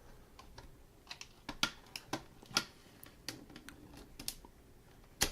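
Protective plastic sticker being peeled off the front of an Equity LED alarm clock: a string of irregular small crackles and clicks, with a sharper click near the end.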